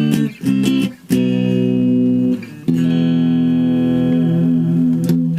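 Yamaha SE350H electric guitar played through a small Roland Micro Cube amp: a few short, choppy chord strikes, then two chords left to ring, the second sustaining for over two seconds before being cut off near the end.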